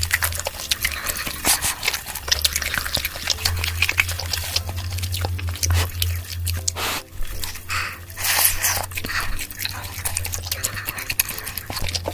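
Close-miked eating sounds: a person chewing and crunching food, with wet mouth smacks and irregular crackling clicks.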